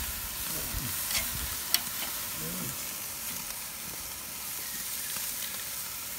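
Marinated beef short ribs sizzling over hot charcoal on the grate of a Weber kettle grill, a steady high hiss. A couple of sharp clicks come between one and two seconds in.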